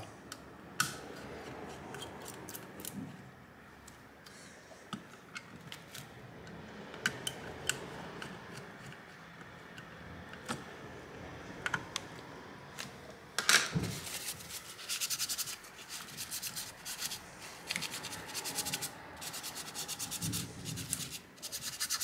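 A hand screwdriver turning the spring-loaded screws of a graphics card's X-shaped GPU mounting bracket, with rubbing and scraping of hands and tool on the metal backplate and scattered small clicks. There is a knock about halfway through, then runs of rapid fine clicking.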